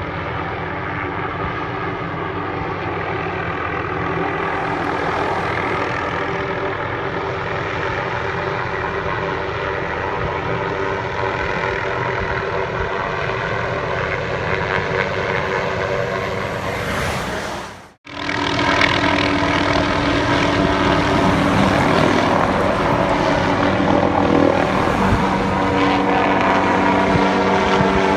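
Helicopter hovering and flying close by, a steady rotor and engine drone. About eighteen seconds in, the sound drops out for a moment, then comes back slightly louder.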